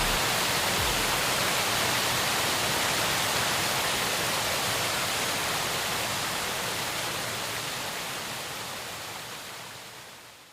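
High Force waterfall rushing steadily, a dense even hiss of falling water that fades out over the last three seconds or so.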